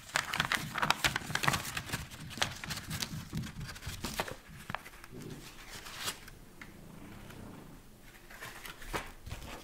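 Paper rustling and crinkling as an opened envelope and sheets of stickers are handled and laid out on a table, with light taps and clicks. Busy for the first few seconds, quieter from about halfway, with a few more rustles near the end.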